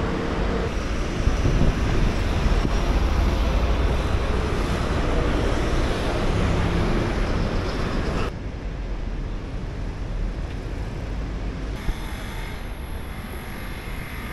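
Steady low rumble and rushing noise of a moving vehicle, with wind on the microphone. It cuts off abruptly about eight seconds in to a quieter background.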